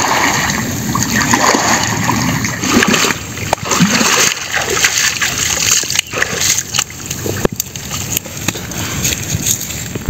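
Water splashing and sloshing as a person wades through a shallow, muddy creek, the body pushing through the water with frequent sharp splashes. It cuts off abruptly near the end.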